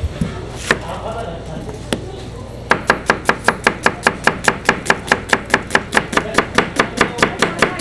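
Kitchen knife slicing an onion on a cutting board: a couple of single knocks, then a steady run of quick chops at about five a second, starting a few seconds in.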